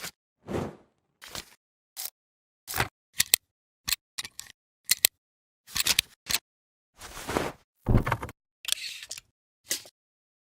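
Film burn transition sound effect: an uneven string of sharp mechanical clicks and clunks, like a camera shutter, mixed with a few longer noisy swishes, separated by dead silence.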